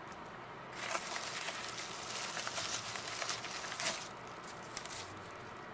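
Packaging rustling and crinkling as soaps are handled and unwrapped from a box, a crackly hiss from about a second in until about four seconds in, then quieter handling.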